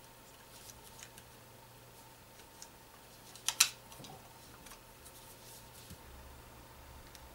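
Light clicks and rustles of a head demagnetizer's plastic casing being handled, with a sharp double snap about three and a half seconds in as the internals are pressed into the case.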